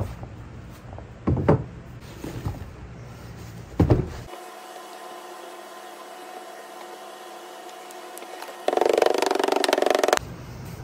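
Molding sand being packed by hand into a wooden casting flask, with two dull thumps in the first four seconds over a low hum. Near the end, a loud, fast rattle of rapid strikes lasting about a second and a half as the sand is rammed down.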